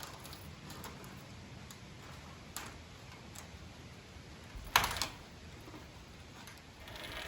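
A few light ticks and one sharper click-and-clatter about five seconds in, over faint background noise.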